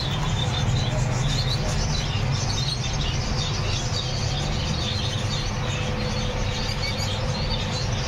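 Many small caged birds chirping and twittering together in a steady chorus, over a constant low hum.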